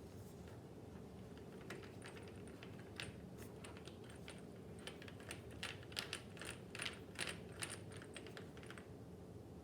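Light, irregular clicks and taps of small metal and plastic parts being handled inside a desktop PC case, with a cluster of sharper clicks in the second half.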